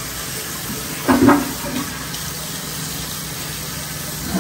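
Water running steadily, with one brief louder sound about a second in.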